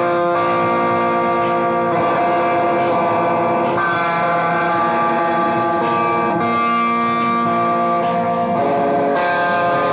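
Instrumental passage of a chopped-and-screwed (slowed-down) song: guitar with effects holding sustained notes that change every second or two, over a steady beat.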